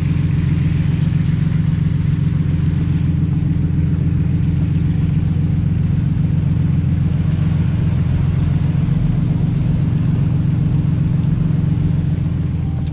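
Off-road 4x4 engine running at a steady low speed while the vehicle drives slowly along a muddy dirt track, a dull steady drone with no revving. It begins to fade near the end.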